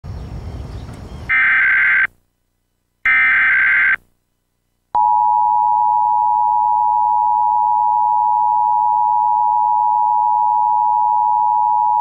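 Emergency Alert System test tones: two short bursts of warbling SAME header data tones about a second apart, then from about five seconds in the steady two-tone EAS attention signal (853 and 960 Hz played together).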